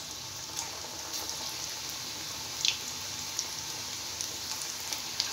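Spinach and gram-flour pakoras deep-frying in hot oil: a steady sizzle with scattered small pops and crackles.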